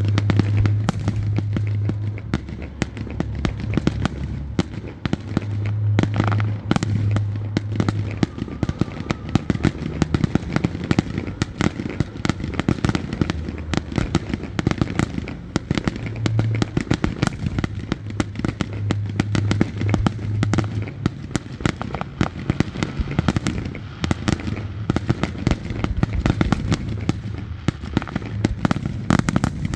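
Fireworks going off without pause: a dense stream of sharp bangs and crackles, many overlapping each second, over a low rumble.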